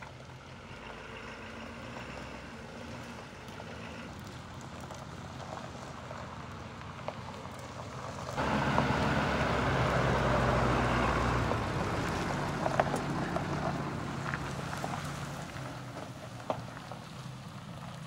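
Ford dump truck's engine running as the truck drives by, jumping louder about eight seconds in as it comes close, then slowly fading, with a few sharp clicks.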